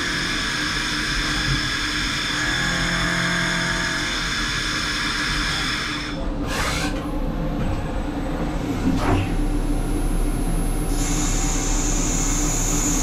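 Tornos Swiss GT 32 CNC lathe machining a brass bolt: a steady mechanical whine of the spindle and drives with several high tones. The sound changes about six seconds in, and near the end a high whine falls in pitch.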